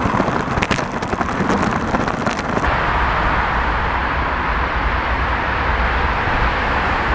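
Irregular crackling taps for the first two and a half seconds, then steady traffic noise from a multi-lane motorway: tyre hiss with a low rumble as cars pass.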